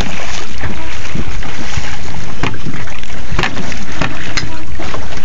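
Heavy wind buffeting the microphone over water splashing beside a boat as a trout is netted, with a few sharp knocks.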